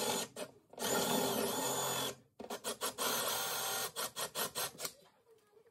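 A cordless drill driving a hole saw through plywood, cutting a round finger-pull hole. It runs in two long bursts, then in short stop-start pulses on the trigger from about halfway, and stops near the end.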